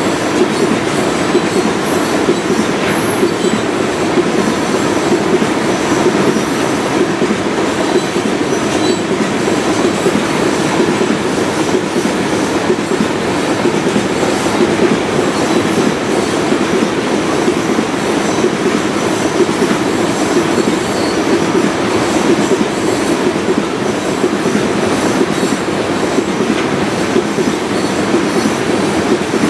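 Norfolk Southern freight train's cars rolling past, a steady loud rumble of wheels on rail that does not let up.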